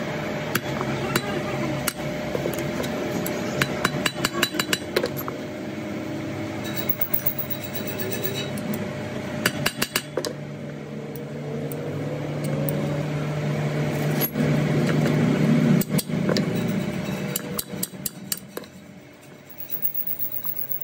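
Hammer striking the steel yoke of a truck drive shaft's universal cross joint: sharp metal-on-metal blows in irregular clusters, over a steady low hum.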